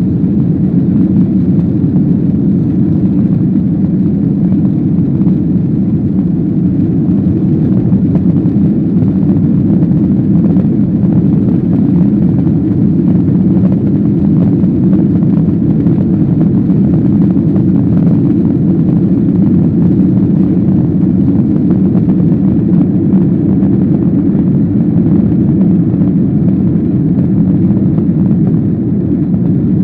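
Inside the cabin of a Boeing 737-800 airborne after take-off, its CFM56-7B jet engines and the airflow make a loud, steady, low rumble.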